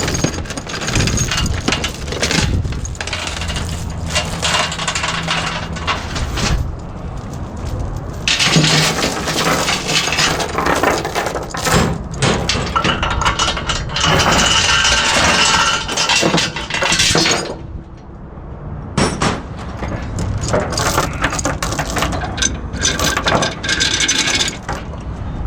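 Mini excavator working with a run of irregular metallic clanking and rattling, typical of steel tracks moving on a steel trailer deck and ramps. A steady low engine hum is heard during the first few seconds.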